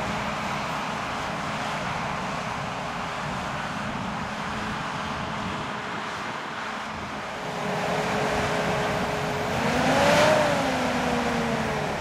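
John Deere 7280R tractor's diesel engine running steadily under load while pulling an eight-furrow reversible plough through stubble. It grows louder near the end as the tractor passes close, the engine note rising then falling in pitch at its loudest.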